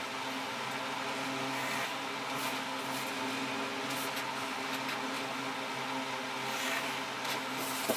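A steady machine-like hum, with faint scratches of a pencil drawing lines along a plastic ruler on paper. There is a single sharp click near the end.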